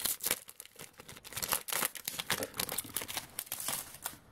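Shiny foil trading-card pack wrapper crinkling and tearing as it is pulled open by hand, an irregular run of sharp crackles that stops just before the end.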